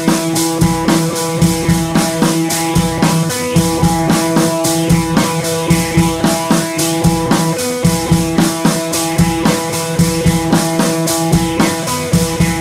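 Background music with drums and guitar and a steady beat.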